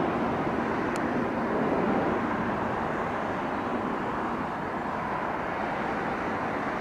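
Airbus A320neo's CFM LEAP-1A turbofan engines at takeoff power, heard from the ground as a steady rushing jet roar as the airliner climbs away. The sound eases slightly over the last few seconds as it recedes.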